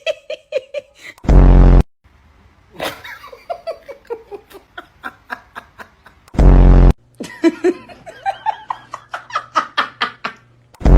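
Three short, loud, low buzzing blasts about five seconds apart, with a person laughing and giggling between them.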